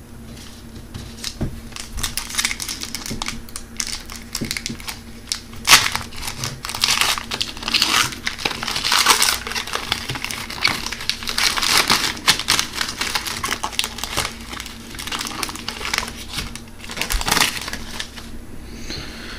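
Shiny foil wrapper of a 2011-12 Panini Titanium hockey card pack crinkling in quick, sharp crackles as it is torn open and worked by hand.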